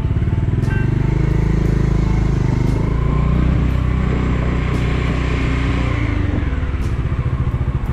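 Bajaj Dominar 400's single-cylinder engine pulling away from a slow, even thump. Its revs climb for several seconds, then it eases off about six seconds in and drops back to the low-rev pulsing.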